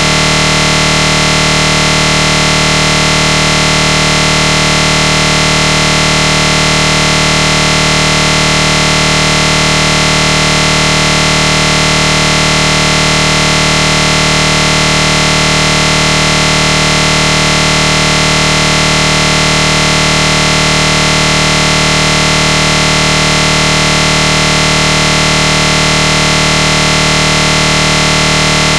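A loud, steady buzzing drone made of many fixed tones, which never changes in pitch or level.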